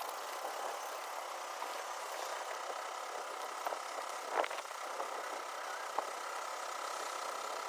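Pressure-washing equipment running: a steady hiss with a thin, steady whine over it and a few faint clicks.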